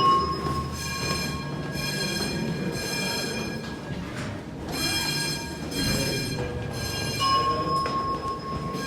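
Building fire alarm sounding: a loud electronic tone with many overtones, in long blasts broken by short gaps, calling for evacuation.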